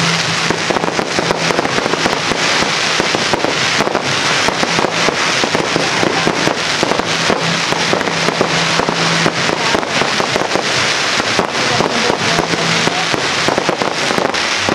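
Fireworks crackling: a loud, dense, continuous run of many small sharp pops from crackling shells bursting overhead.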